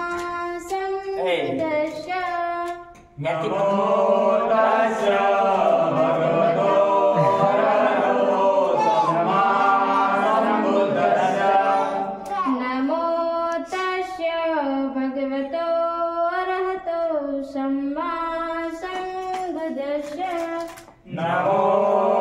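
Unaccompanied singing of a Buddhist devotional song, led by a woman's voice, with a short break about three seconds in and another near the end.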